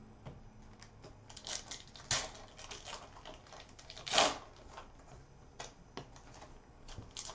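Foil trading-card pack wrapper crinkling and tearing as it is pulled open by hand, in scattered crackles with louder ones about two seconds and four seconds in.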